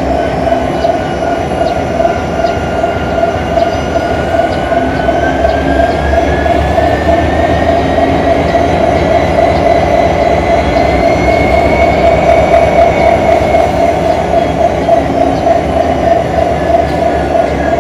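GM-engined Electroputere Class 65 diesel-electric locomotive running at a standstill just after start-up, a loud steady engine drone. Over it a thinner whine slowly rises through the first half and falls back again near the end.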